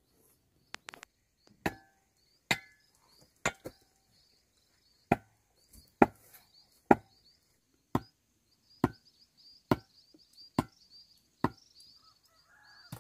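Chopping: a sharp blade strike about once a second, a dozen strokes in a steady rhythm, with insects chirping faintly in the background.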